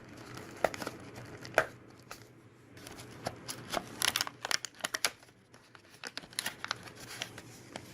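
Plastic packaging crinkling and tearing as boxed accessories are handled, with many short sharp clicks and rustles, busiest a few seconds in.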